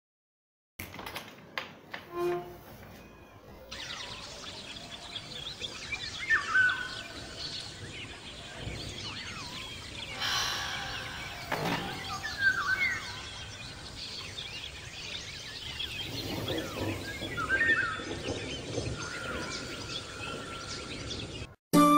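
A few knocks and clicks as wooden windows are opened, then birds chirping and singing over a soft outdoor hiss. One clear rising-and-falling call comes back about every five to six seconds.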